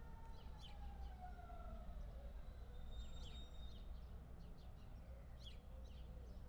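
Faint whine of a Berlin S-Bahn suburban train sliding down in pitch over about three seconds as the train moves off. Beneath it is a steady low rumble, and small birds chirp throughout.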